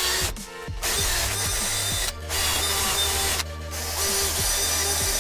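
Cordless drill spinning a small wire brush bit against the pit bike cylinder head's combustion chamber and valve seats, scrubbing off carbon deposits. The drill runs in short spells, stopping briefly about half a second in, just after two seconds, and around three and a half seconds.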